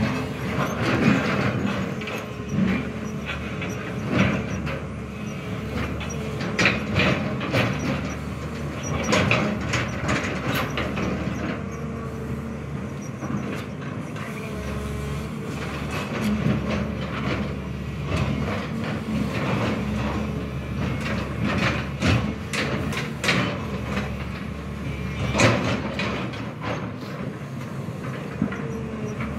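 SANY hydraulic crawler excavator digging soil: its diesel engine runs steadily while the bucket and boom give repeated sharp clanks and knocks, the loudest about a second in and near the end.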